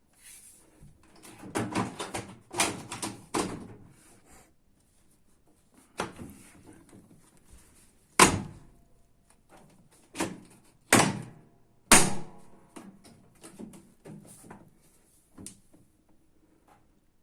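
Knocks and clunks of hands working on a washing machine's panels and parts: a clatter of handling in the first few seconds, then a series of sharp separate knocks, the loudest about 8 and 12 seconds in.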